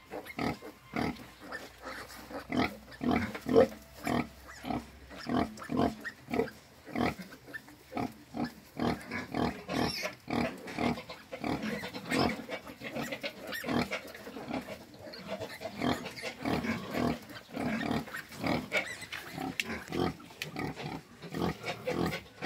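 A nursing sow grunting in a quick, steady rhythm, about two grunts a second, while her newborn piglets suckle, the piglets adding their own small grunts.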